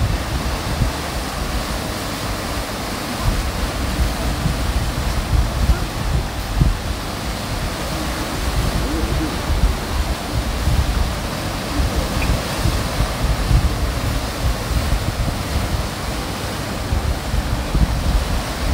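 Sea surf washing over a rocky shore, a steady rush of water, with wind gusting on the microphone.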